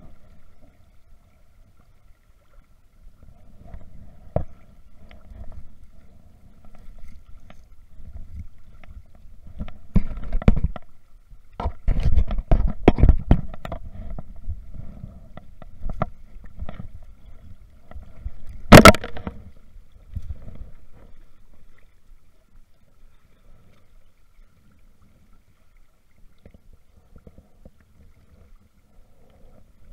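Irregular rumbling of wind and handling against a body-worn camera's microphone, with scattered knocks, loudest in the middle, and one sharp clack about two-thirds of the way through.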